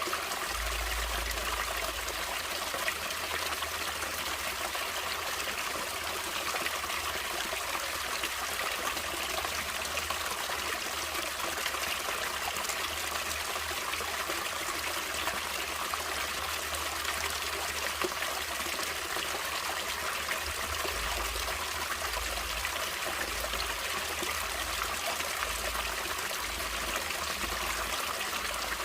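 Water running and trickling steadily in a natural stream, a constant splashing hiss.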